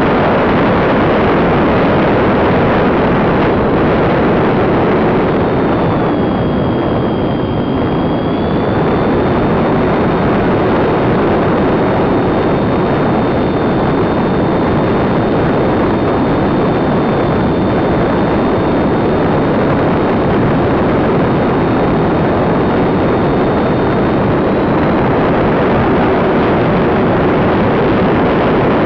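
Radio-controlled YC-14 model plane in flight, heard from a camera on its tail fin: loud steady rushing of wind over the airframe and microphone, with a high motor whine in two close pitches. The whine comes in a few seconds in, its two pitches spread apart briefly, and it fades out a few seconds before the end.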